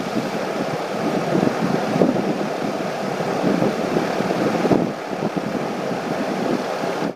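Steady rushing, air-like noise with irregular rustling over it.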